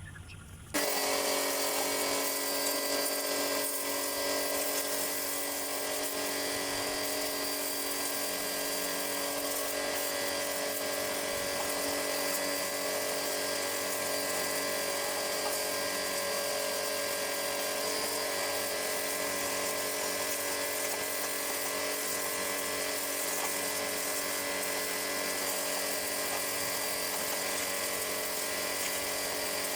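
An electric motor-driven workshop tool starts suddenly about a second in and runs steadily, a whine of several fixed tones over a hiss.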